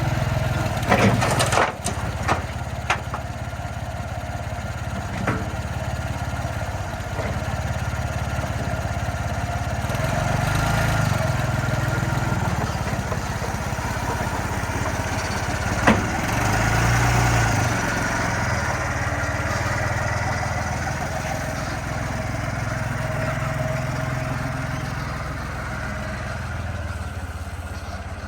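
Hyster S50C forklift engine running and working, its speed rising and falling several times, with a few sharp metal knocks in the first seconds and one more about halfway through.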